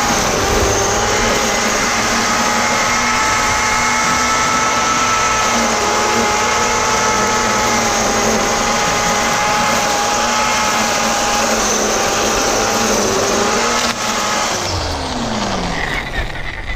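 Black & Decker GL7300 700-watt electric string trimmer running at full speed with a steady high whine, then switched off about fourteen seconds in, its motor winding down with a falling pitch.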